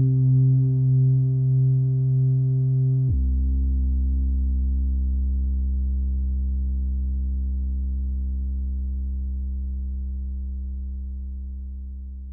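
Ambient background music: a held low drone chord of steady tones that changes about three seconds in, then sustains and slowly fades out.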